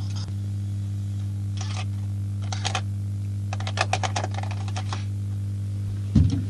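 A steady low electrical hum, with short runs of quick clicks and rattles from about one and a half to four and a half seconds in, and a low thump near the end.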